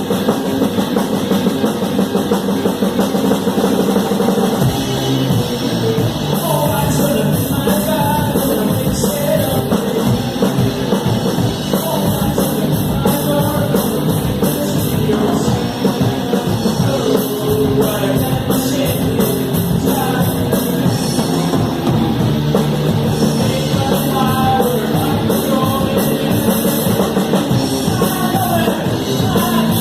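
Rock band playing live, heard from the drum kit: drums and cymbals up close over amplified guitar and bass. The low end shifts about four and a half seconds in.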